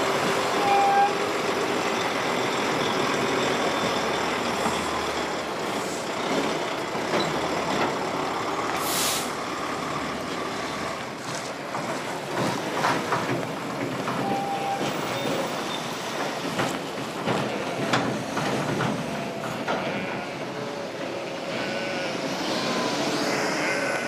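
Heavy diesel vehicles running at an industrial rail yard and crossing, with a sharp hiss of released air from an air brake about nine seconds in and two short beeps.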